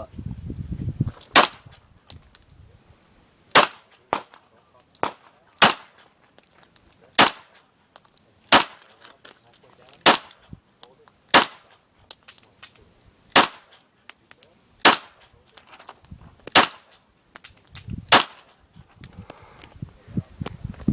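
A string of single gunshots from a magazine-fed firearm in slow, steady fire, about one shot every one and a half seconds, with a few fainter shots in between.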